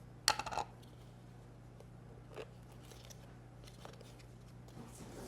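A short burst of crackling and clicking about a third of a second in, then a few faint clicks: a container or packet of celery powder being handled and opened. A steady low hum runs underneath.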